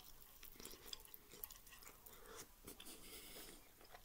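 Faint chewing of barbecue pork rib meat, with scattered small irregular mouth clicks.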